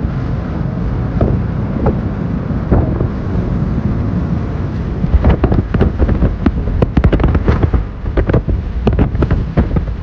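Moving car heard from inside, a steady low rumble of road and wind noise with wind buffeting through a partly open side window. From about halfway through, a dense run of sharp knocks and rattles joins it.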